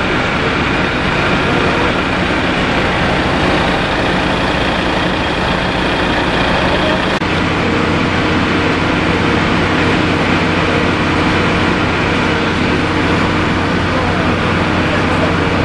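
Fire trucks' diesel engines running steadily at a fire, a constant drone with a rushing noise over it. The pitch of the drone shifts about seven seconds in.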